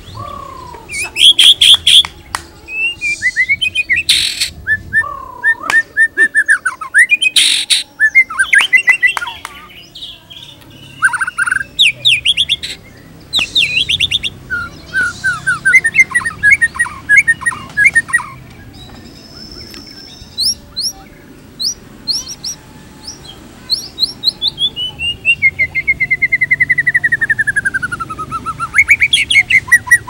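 White-rumped shama singing a long, varied song of fast trills, sharp clicks and clear whistles. Near the end it slides down in pitch in one long falling whistle.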